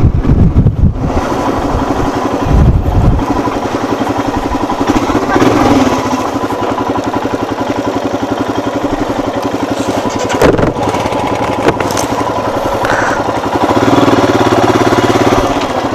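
Royal Enfield Himalayan single-cylinder motorcycle engine running while riding, with rapid even firing pulses. Wind buffets the microphone in the first few seconds, and the engine grows louder for a moment near the end.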